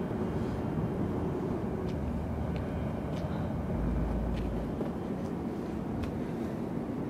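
Steady low outdoor background rumble, with a few faint light ticks scattered through it.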